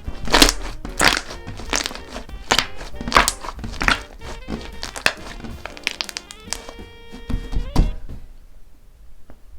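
Dried cracking clay being crushed and snapped by hand, a series of crisp cracks about twice a second that stop shortly before the end, over background music.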